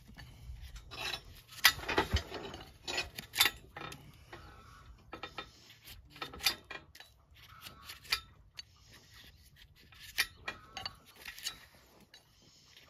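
Steel hoof-paring blade scraping along a donkey's hoof wall and iron shoe, with irregular scrapes and sharp metallic clicks as the blade catches the shoe and nail heads.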